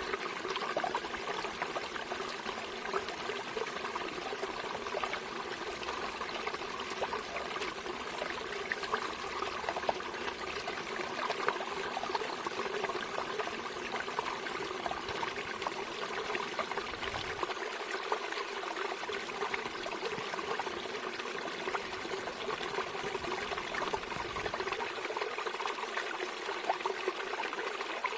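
Water trickling and splashing steadily, a continuous flowing-water sound.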